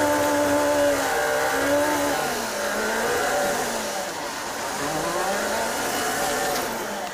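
City bus engine heard from inside the cabin, running under way. Its pitch holds steady at first, then falls and rises again a few times through the middle as the bus slows for a corner and pulls away.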